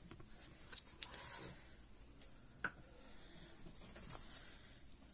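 Faint, scattered light taps and clicks of small craft items, a pen and small cups, being handled and set down on a desk, with the sharpest tap about two and a half seconds in.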